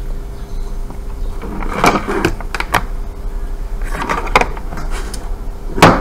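Clicks, scuffs and knocks of hands handling an opened MacBook Pro and laying cables and a meter on a wooden workbench, with the sharpest knock near the end.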